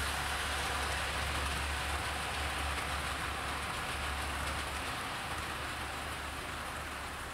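OO gauge model train, a Hornby Railroad Midland Compound hauling four coaches, running along sectional track: a steady rushing rattle of wheels on rail with a low motor hum underneath, easing off slightly as the train draws away near the end.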